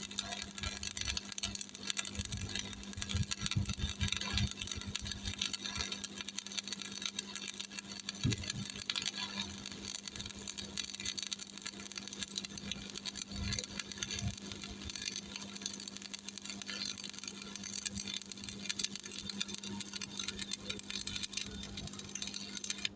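Stick-welding arc from a Miller Thunderbolt 225 burning an E6013 3.2 mm electrode: a steady crackling sizzle over a constant hum. It cuts off abruptly at the very end as the arc is broken.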